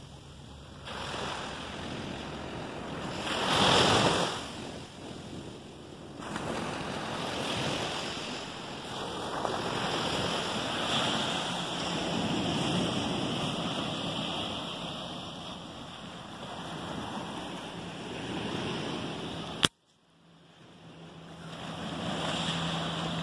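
Small waves breaking and washing up a sandy beach, with wind on the microphone; one louder wave surges about four seconds in. Near the end a sharp click cuts the sound off briefly before the surf fades back in.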